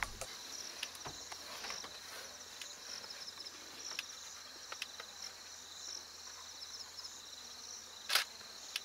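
Steady, high-pitched chirring of insects, with a few faint clicks and one louder short knock about eight seconds in.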